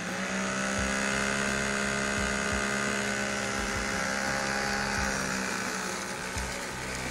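Small electric motor of a 3D-printed lawn mower spinning its blades: a steady whine with several overtones that comes in suddenly and sags a little in pitch over the first few seconds.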